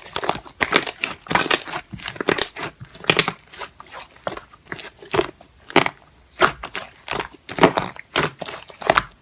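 Slime being squeezed and poked by hand, giving a dense, irregular run of crackles, clicks and pops.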